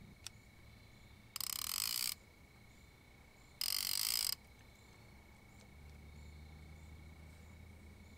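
A fishing reel's clicker rasps in two short runs, about two seconds apart, as line is pulled off the spool: what the angler calls the first bite of the night, one that reminded him of a flathead bite. Under it runs the steady high drone of night insects.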